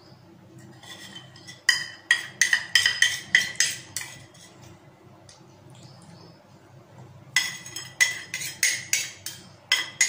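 Steel spoon clinking and scraping against a small stainless-steel bowl as food is scooped out: a run of quick ringing clinks about two seconds in, and another near the end.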